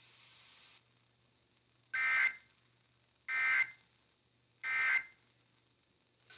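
Emergency Alert System SAME header: three short, identical bursts of two-tone digital data about a second and a half apart, announcing a new alert, here a tornado warning. Faint radio hiss cuts off just before the first burst.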